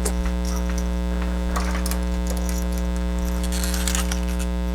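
Steady electrical mains hum, a fixed low buzz with its evenly spaced overtones, with a few faint light clicks and rustles over it, about a second and a half in and again near the end.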